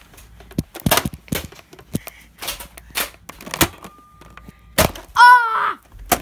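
A string of sharp clicks and knocks from Nerf foam-dart blasters firing and darts hitting, with a child's short yell about five seconds in.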